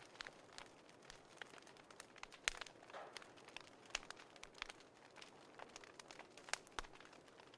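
Faint, irregular crackling: scattered sharp clicks, a few a second, over a low hiss, with slightly louder snaps about two and a half seconds in and near the end.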